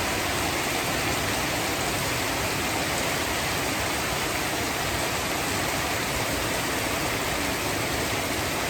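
Heavy rain pouring down: a steady, even rushing hiss.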